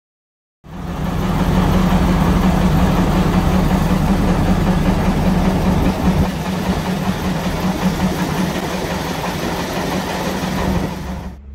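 Walker railmotor RM32's diesel engine running steadily in the driver's cab, heard close up as a loud, even hum. It cuts in about half a second in.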